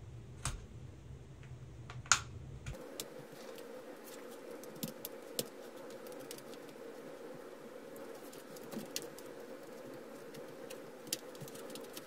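Pry tool working around the edge of a Lenovo ThinkPad W550s bottom cover, with scattered sharp clicks and snaps as the cover's clips come loose, the loudest about two seconds in. A faint steady hum underneath.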